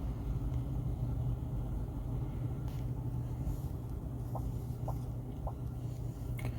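Steady low background hum, with three faint short chirps about half a second apart in the last third and a single click near the end.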